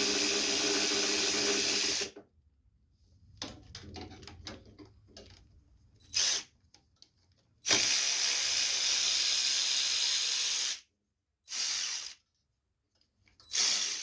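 Power drill driving a 7/16 socket on a swivel and extension, run in bursts: about two seconds at the start, a longer three-second run about halfway in, then two short ones near the end, spinning off the carburetor's mounting nuts. Faint metal clicks of the tool and parts between runs.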